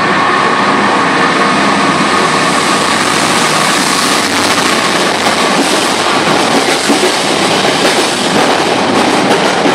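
Freightliner diesel locomotive hauling a container freight train past at close range. It comes by with a steady high whine that fades after about four seconds, then the container wagons roll past with a loud, continuous rumble and clatter of wheels over the rail joints.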